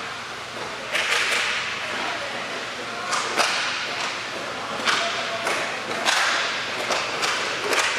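Inline hockey sticks clacking on the puck and the plastic tile floor, about ten sharp cracks at irregular intervals over a steady background of rink noise.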